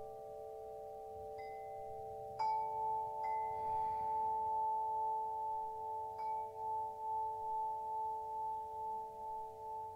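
Slow meditative music of long ringing bell tones that hang and overlap, with new tones struck now and then. The loudest strike comes about two and a half seconds in, and its ring wavers in loudness as it sustains.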